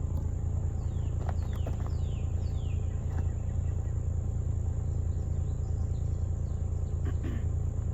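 Outdoor ambience: a steady low rumble, a constant high insect drone, and a few short descending bird calls in the first three seconds.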